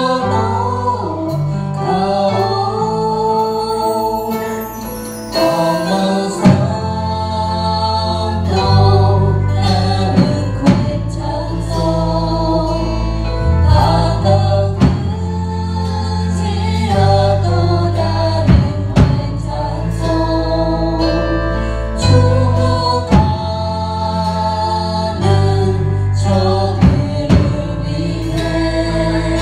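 Live worship band playing a song: several voices singing together on microphones over keyboard, acoustic guitar and percussion, with a steady bass line and regular drum hits, amplified through PA speakers.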